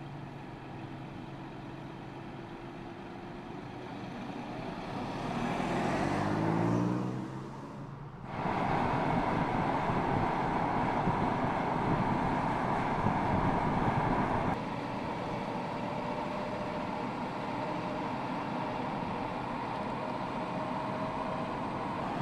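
MINI Cooper Convertible driving: a steady engine note, then the engine rising in pitch as it accelerates, followed by steady tyre and wind noise at speed. The sound changes abruptly twice, about eight seconds in and about fourteen seconds in.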